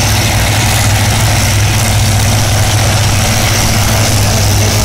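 Drag racing car's engine running steadily and very loud at the start line of a drag strip, a constant deep drone with a dense hiss above it.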